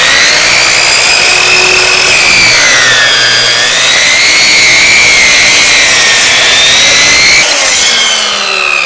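Electric chop saw's motor whining loudly as its blade cuts through a dry-aged bone-in New York strip loin, the pitch sagging and wavering as the blade meets the meat and bone. About seven and a half seconds in the saw is released and the whine falls away as the motor winds down.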